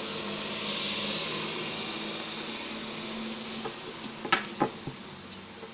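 Steady low hum under a hiss that slowly fades, with a few light clicks about four and a half seconds in.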